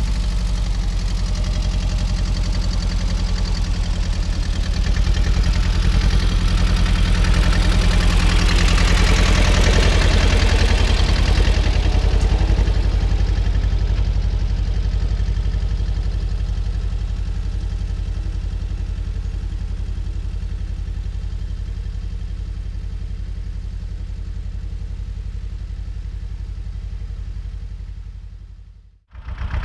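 Older tractor's engine running steadily as it pulls a field roller past. It grows louder to a peak about a third of the way in, then fades as it moves away, and cuts out briefly just before the end.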